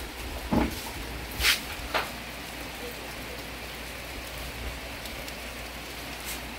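Steady rain falling, with a few short, sharp sounds in the first two seconds.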